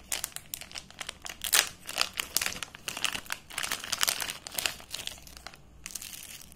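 Plastic packaging crinkling as a mask pouch is handled and opened and its contents, the mask and filters in a plastic sleeve, are pulled out. It comes as a run of sharp crackles, loudest about a second and a half in, thinning out near the end.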